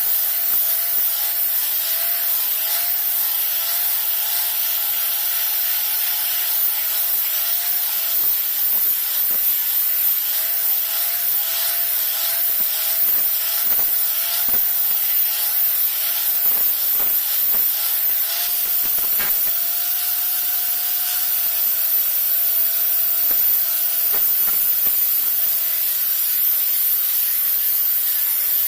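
Small electric power tool running steadily with a slightly wavering whine, over an abrasive rubbing, sanding hiss, as it works on a machete with a few light knocks.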